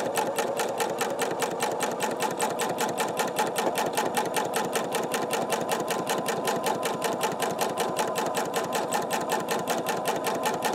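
Domestic sewing machine stitching steadily in free-motion quilting, its needle punching through the quilt layers at about eight stitches a second.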